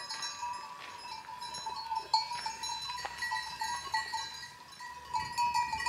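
Bells on a grazing flock of goats and sheep, clinking and ringing irregularly as the animals move.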